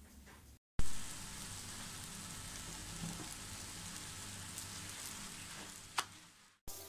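Melwi flatbread dough frying in oil on a hot flat griddle: a steady sizzle that starts abruptly about a second in, with one sharp tap near the end.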